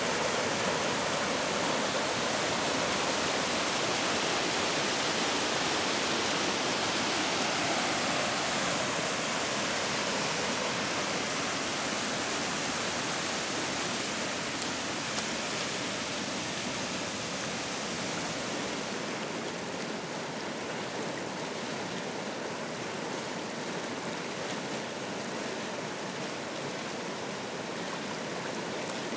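Mountain river in spring flow, white water rushing over rocks in a steady, even rush of noise that eases slightly about two-thirds of the way through.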